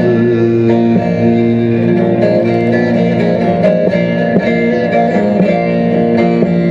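Instrumental break in a Turkish folk song: plucked string instruments play a melody over steady held notes between sung lines.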